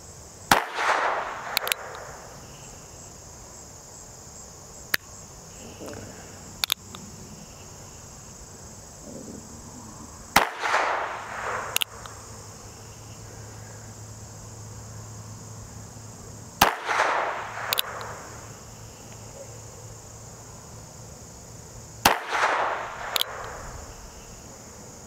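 Four shots from a North American Arms 22S mini revolver firing .22 Short rounds, spaced several seconds apart, each followed by about a second of echo. Small sharp clicks come between the shots, over steady cricket chirring.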